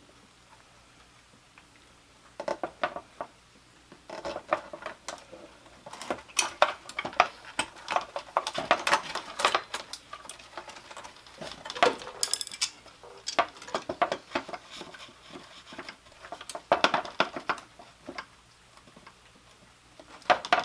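Metal hand tools and car parts clinking, knocking and rattling in irregular clusters of sharp clicks, starting about two seconds in, as the car's front-end parts are unbolted and worked loose.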